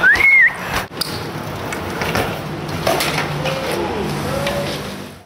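Street ambience with a steady low traffic hum and a few faint knocks. A short high squeal rises and holds for about half a second at the very start, and the sound cuts off abruptly near the end.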